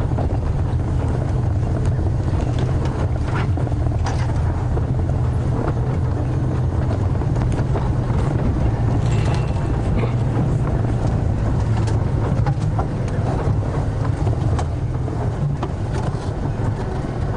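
Safari game-drive vehicle's engine running steadily as it drives off-road through the bush, with scattered clicks and knocks over the engine noise.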